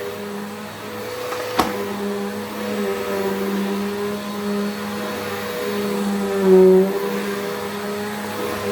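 Bissell Powerforce upright vacuum cleaner running steadily, its motor hum swelling and dipping slightly as it is worked. A single sharp click comes about one and a half seconds in, and a brief louder surge a little after six seconds in.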